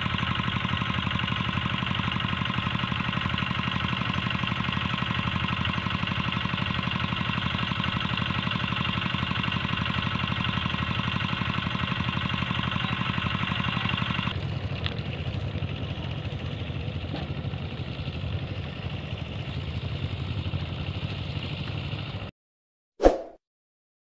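Walk-behind hand tractor's single-cylinder engine running steadily under load while it pulls an onion-field implement; the sound grows quieter and duller about two-thirds of the way in, then cuts off abruptly, followed by a short sound effect near the end.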